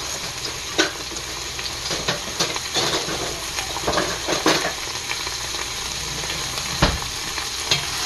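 Beef cubes, onion and garlic sizzling in hot olive oil in a stainless steel pot, a steady frying hiss. Several sharp clicks and knocks come through it, the strongest near the end.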